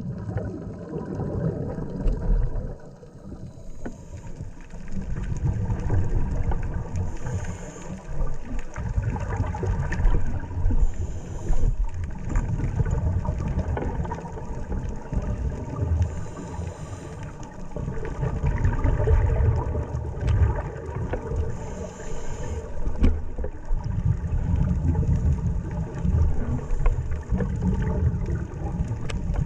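Sea water churning and sloshing around a camera in a waterproof housing as a scuba diver enters the sea from a boat, a muffled low rumble that surges and eases, with scattered knocks.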